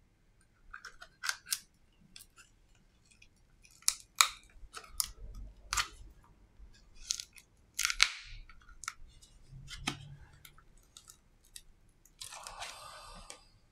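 Sharp, irregular plastic clicks and taps as a smartphone's display frame is pried and handled with a plastic pry card, with one louder snap about eight seconds in and a brief scratchy rustle near the end.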